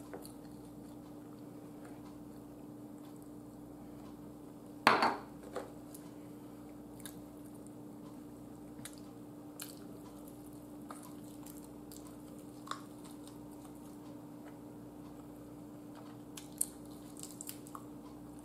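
Quiet eating: chewing and small mouth clicks as chicken wings are bitten and stripped from the bone, over a faint steady hum, with one louder knock about five seconds in.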